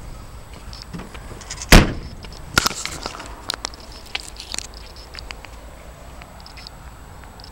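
Scattered clicks and crackles, with one loud knock a little under two seconds in and a smaller one about a second later.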